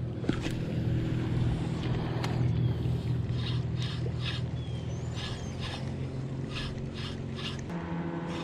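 Bow-mounted electric trolling motor running with a steady hum, which shifts in tone near the end as its speed changes. A few short clicks come over it.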